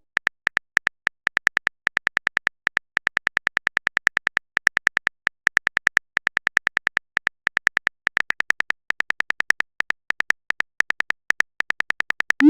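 A typing sound effect: a fast, irregular run of short high-pitched clicks, about six to eight a second, as text is typed out in a chat. It ends with a short rising blip.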